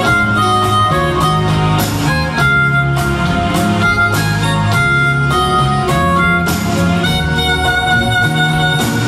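Live band playing a slow instrumental: a sustained lead melody over bass guitar, drums and percussion.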